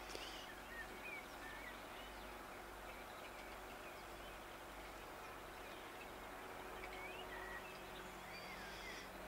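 Faint outdoor ambience: small birds singing, many short chirps and warbles scattered throughout, over a steady background hiss and low rumble.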